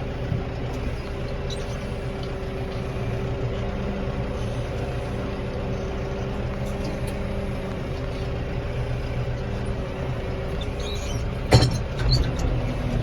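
Farm tractor engine running steadily, with a sharp knock near the end.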